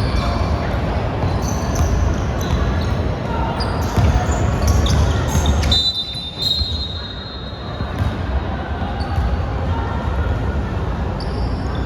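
Basketball game sounds: the ball bouncing on the court, sneakers squeaking and players' voices. About six seconds in a referee's whistle sounds for about a second, and the play goes quieter for a moment.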